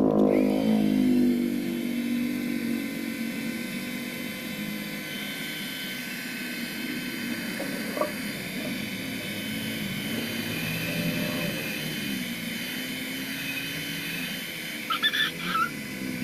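Small handheld hair dryer running, a steady rush of air with a high fan whine, aimed at the back of a motorcycle mirror. A click comes about halfway through, and a few brief high-pitched chirps come near the end.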